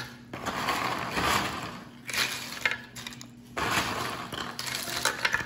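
Crisp fried patata biscuits clattering and a paper towel rustling as a hand moves through the bowl, in about three bursts of dry rustle with small clicks.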